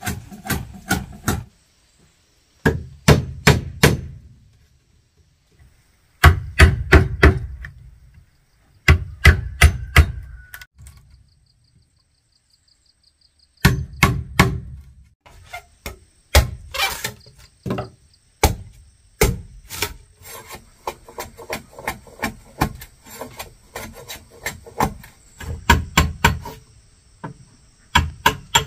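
A tool striking wood in quick runs of four or five sharp blows, broken by pauses, then a longer stretch of denser, lighter blows in the second half.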